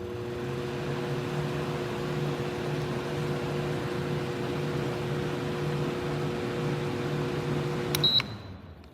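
Shinic twin-blade window fan running: its motors hum under a steady rush of air with a slow pulsing throb from the blades. About eight seconds in the unit clicks and gives a short high beep, the hum stops and the air noise winds down as the fan switches off.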